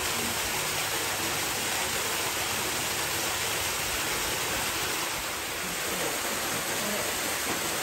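Steady rush of running water, with faint distant voices now and then.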